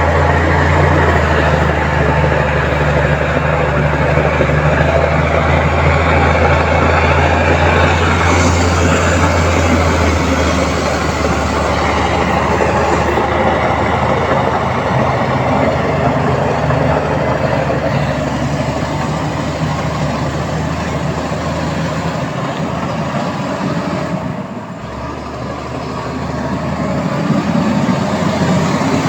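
Heavy diesel construction machinery running steadily under load with a deep engine note, which changes about ten seconds in and dips briefly near the end.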